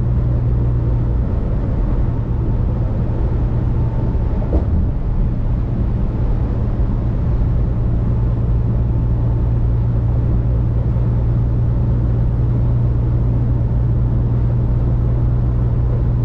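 Steady low drone of a semi truck driving at highway speed, heard from inside the cab: diesel engine and tyre noise on a wet road. There is one brief click or knock about four and a half seconds in.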